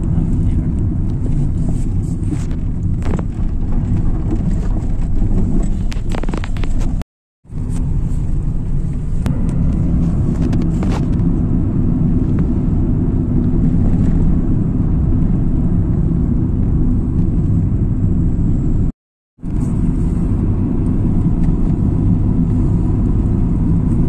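Steady low rumble of a car driving, road and engine noise heard from inside the car, with a few faint clicks. The sound cuts out completely twice for about half a second.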